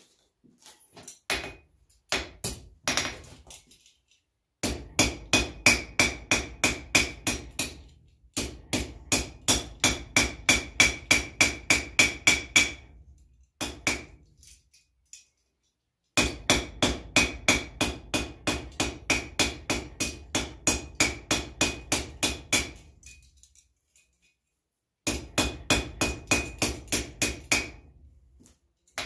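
Blacksmith's hammer striking hot steel on an anvil in fast runs of blows, about four to five a second, each blow with a bright anvil ring. There are four long runs with short pauses between them, and a few scattered blows in the first few seconds. This is the forge weld on a small chain link being hammered closed.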